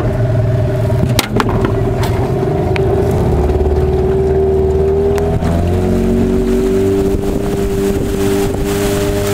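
Motorboat engine running steadily, its pitch stepping up a little about five and a half seconds in, with a couple of sharp knocks a little over a second in.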